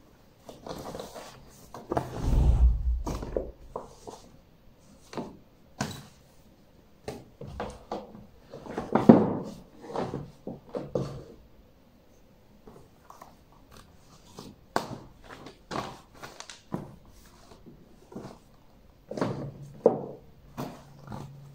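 Books being handled and stood on the ledges of a bookstand: irregular knocks, taps and paper rustles, with a heavier thump about two seconds in and another around nine seconds.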